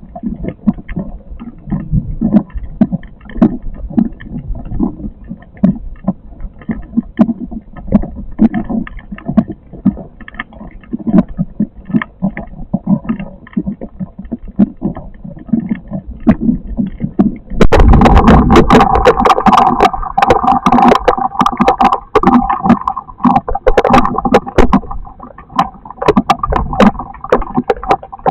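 Storm wind gusting over the microphone with scattered raindrop ticks. About 18 seconds in, it gives way abruptly to a much louder, dense pelting of heavy rain.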